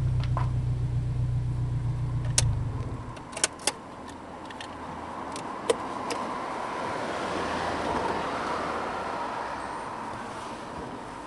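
Honda S2000's engine idling steadily, then switched off about two and a half seconds in; a few sharp clicks follow.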